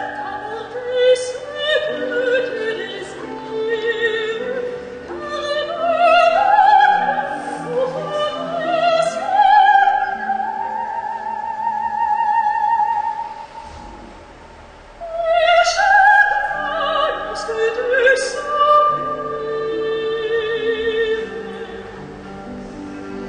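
Operatic singing with a wide vibrato over orchestral accompaniment, played as a film soundtrack. It falls away for about a second past the middle and then resumes.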